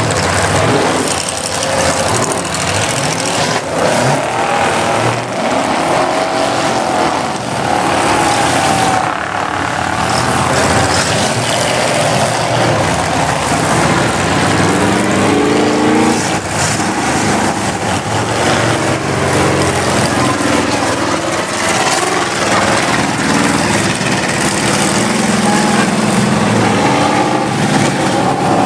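Modified 4x4 pickup trucks' engines running loud and revving as they drive through a mud bog pit, the engine pitch rising and falling several times.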